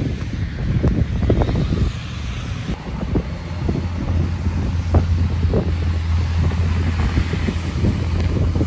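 Wind buffeting the microphone in a snowstorm, a rough low rumble, with traffic on a snowy road underneath. A steady low hum joins about four seconds in.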